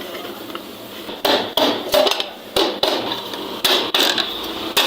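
Hammer blows on a sheet-metal repair strip for a refrigerator body: about seven sharp, unevenly spaced strikes starting about a second in.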